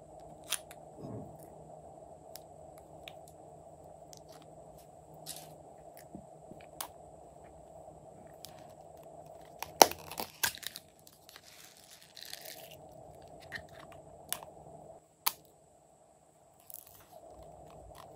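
Small plastic pots and cases handled by hand: scattered light clicks and taps, a few sharp plastic snaps about ten and fifteen seconds in, and a brief crinkly rustle between them.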